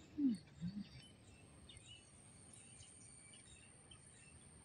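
Quiet outdoor garden ambience with scattered faint bird chirps and a steady, thin high whine. Near the start comes a short low sound falling in pitch, then a second, lower one.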